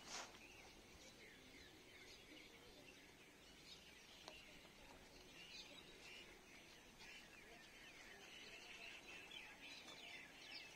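Faint chirping of many small birds, growing denser in the second half. One short knock comes right at the start.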